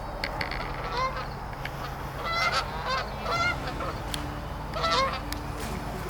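Canada geese honking: short, clipped honks in clusters, about a second in, in the middle, and again near the end.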